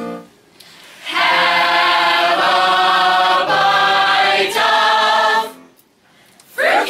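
Mixed high school choir singing a cappella: after a short pause it sings a long held chord for about four seconds, moving through a few chord changes before cutting off, the close of the song. A sudden loud voice breaks in near the end.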